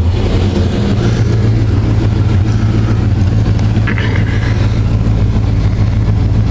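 The engine of an old lifted Chevrolet/GMC Suburban runs at a steady idle, heard from inside the cab, with a noisy accessory belt. A brief higher-pitched noise comes about four seconds in.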